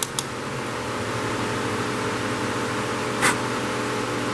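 Steady whir of an electric shop fan. Two light clicks at the start and a brief scrape about three seconds in come from tools and carburetor parts being handled on the bench.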